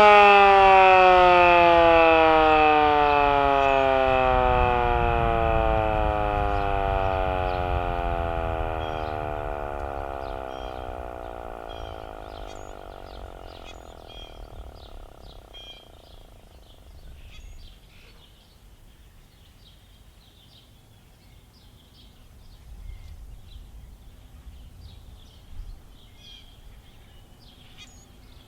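Canadian Model 2 outdoor warning siren winding down after its attack signal, its pitch falling steadily as it fades out over about fifteen seconds. Birds chirp once the siren has died away.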